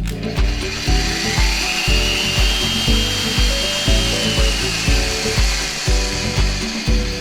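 FE 50 R/L X magnetic drilling machine drilling, its hiss starting suddenly with a high whine that rises and then falls in pitch midway. Background music with a steady beat plays throughout.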